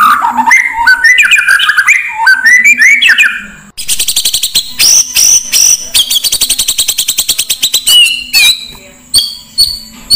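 Oriental magpie-robin song in a lure recording mixed with master-bird calls: loud sweeping whistled phrases, then about four seconds of a fast, rattling chatter of repeated notes, then scattered short sharp chips near the end.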